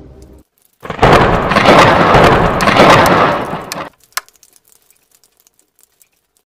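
A sudden loud burst of rushing noise, about three seconds long, that fades out, followed by a single sharp click.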